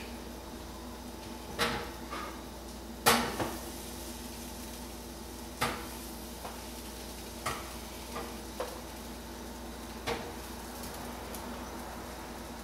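Halved red potatoes being dropped one by one into a hot roasting pan around a baked chicken: about ten irregular knocks and clinks, the loudest about three seconds in, over a steady faint hum.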